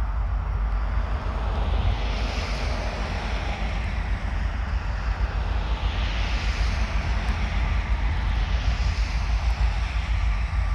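EMD SD60 diesel-electric locomotive's 16-cylinder two-stroke diesel running with a deep, steady rumble, while a higher rushing noise swells and fades three times.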